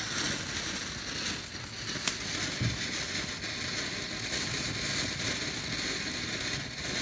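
Silver Demon firework fountain burning, its spark jet giving a steady hiss. A sharp pop about two seconds in and a low thump half a second later.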